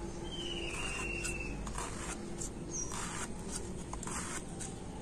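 Peeled ridge gourd being sliced against a boti, a fixed upright kitchen blade: a run of short cutting strokes, several a few seconds apart, with birds chirping in the background.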